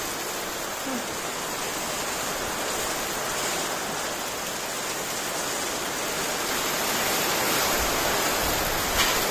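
Heavy rain pouring down, a steady hiss that grows a little louder in the second half.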